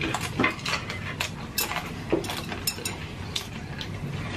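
Eating sounds of pan-fried dumplings: close chewing and mouth smacks, with irregular sharp clicks of chopsticks against the griddle and dishes.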